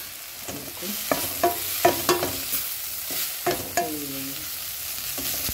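Wooden spatula stirring chopped vegetables and freshly added ground spices as they fry in a metal pan: a run of scraping strokes against the pan over a steady sizzle, as the spices are sautéed in the oil.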